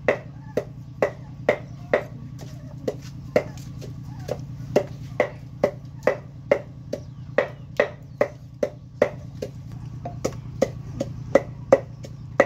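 Steady chopping, a blade striking a wooden board at a regular pace of about two strokes a second, with one short pause about two seconds in. A steady low hum lies under it.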